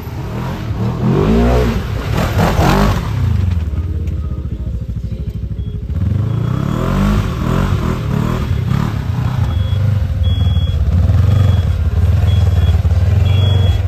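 ATV engine revving up and down twice, then running steadily under way.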